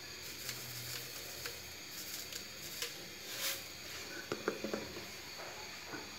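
Faint steady hiss with scattered light clicks and taps, a short swish about three and a half seconds in, and a quick cluster of taps about a second later: small handling sounds around a pan of milk, water and sugar on the stove.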